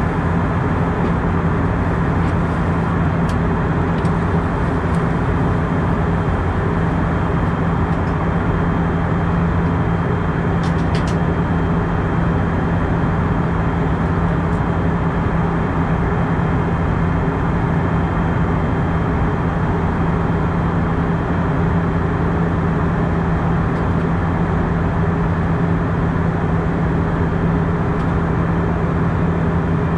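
Steady cabin noise of an Airbus A319 airliner during its descent, heard at a window seat: airflow rush and engine noise with an unchanging low hum.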